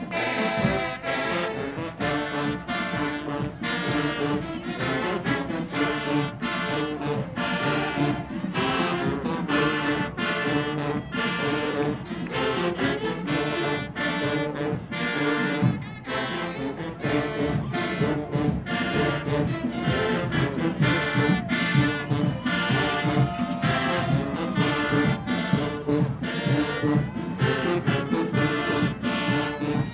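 Marching band playing a brass-led tune, trombones and trumpets over drums keeping a steady beat.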